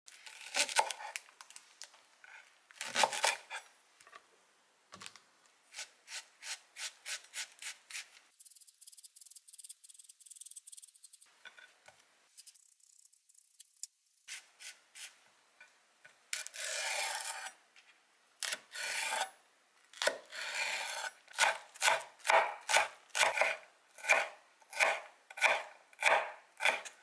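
Chef's knife cutting leek and red bell pepper on a bamboo cutting board, in runs of short strokes. There is a steadier rasping stretch in the middle, and the chopping settles into about two strokes a second near the end.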